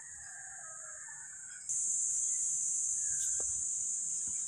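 A rooster crowing faintly in the distance trails off over the first second and a half. Then a loud, high, steady insect buzz starts abruptly and keeps going.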